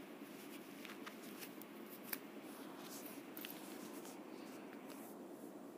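Electric hand mixer beating egg whites with sugar in a glass bowl, heard faintly: a low, steady whir with a few scattered clicks.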